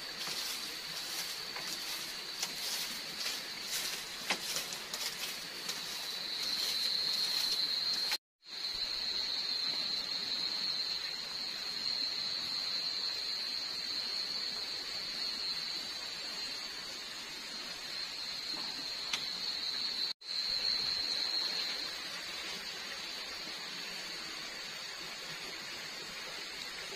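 Steady high-pitched drone of night insects over a soft hiss. For the first several seconds, a broom brushes in repeated strokes across a bamboo slat floor. The sound drops out completely twice, briefly.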